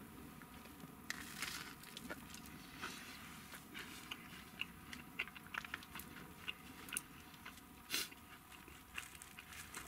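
Crunching bites and chewing of a crisp toasted baguette slice, heard as a scatter of short crackly crunches.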